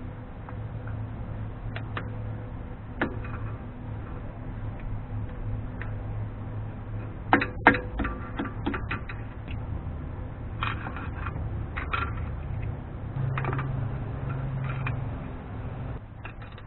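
Small metal clicks, taps and scrapes of a pick working at a sticky lock ring in a Dana 44 front wheel hub, with two sharper clanks about seven seconds in, over a steady low hum.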